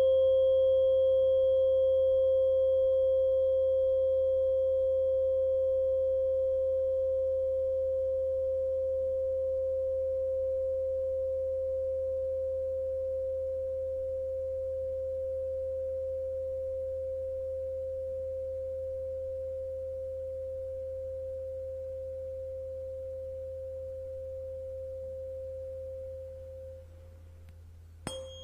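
A steady pure tone at 528 Hz, slowly fading, over a faint low hum. Near the end it dips away, a sharp click is heard, and the tone comes back.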